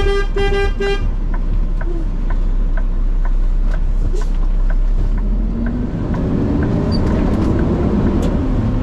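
Three short horn toots in the first second, then a steady ticking about three times a second over the constant low drone of a diesel truck's engine.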